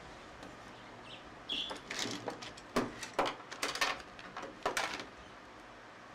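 Hands handling small tools and camera lens parts on a workbench: a quick series of clicks, taps and scrapes from about a second and a half in until about five seconds in, with a brief squeak at the start.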